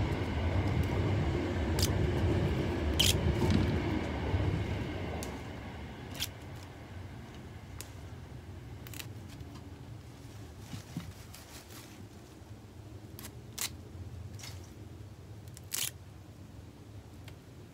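Moringa leaves being picked off their stems by hand: scattered small snaps and rustles, with a few sharper clicks. A low rumble fills the first five seconds or so and then fades away.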